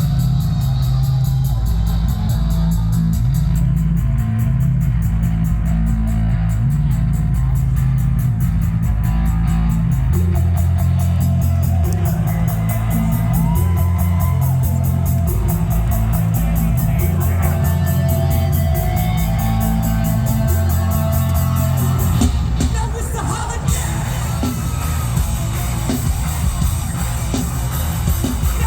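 A heavy rock band playing live at full volume, with distorted guitars, heavy bass and shouted vocals over a fast, even beat.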